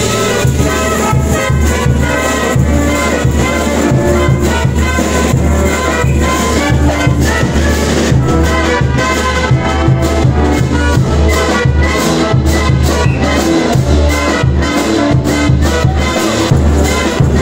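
Brass band of trumpets and trombones playing a festive processional tune over a steady bass-drum beat, accompanying a religious dance.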